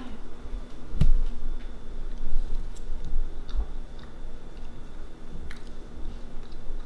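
A fork clicking against a ceramic plate as a bite of cake is cut and eaten: one sharp tap about a second in, then a few lighter clicks.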